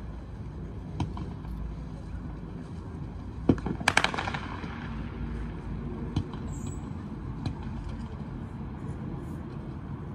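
Fireworks going off in the distance: one sharp bang about three and a half seconds in, then a quick cluster of cracks, with a few fainter pops before and after. Under it runs a steady low rumble.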